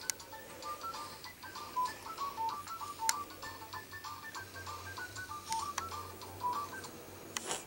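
Baby play gym's electronic music unit playing a simple tune of short beeping single notes, with a few sharp clicks mixed in.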